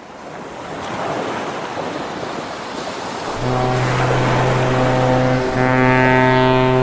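A steady rushing noise, then a deep horn sounding about three and a half seconds in: one long blast, a brief break, and a second long blast on the same note.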